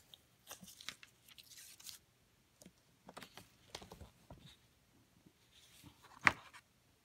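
Paper rustling and crinkling as the thin paper sheet and inner paper cover of a cigar box are handled and folded back, in short scattered bursts, with one sharp tap on the box about six seconds in, the loudest sound.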